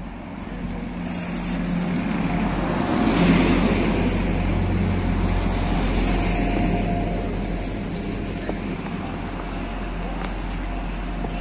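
Class 175 diesel multiple unit running past along the platform: a steady low diesel rumble with a faint whine that grows louder as the train comes alongside. A brief sharp, very high-pitched squeal about a second in.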